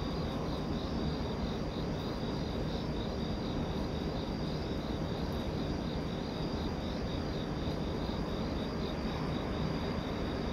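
Crickets chirping in a steady, evenly pulsing rhythm over a constant low rumble.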